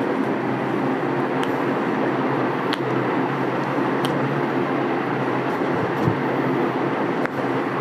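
Steady mechanical drone with a low hum, even throughout, with a few faint clicks.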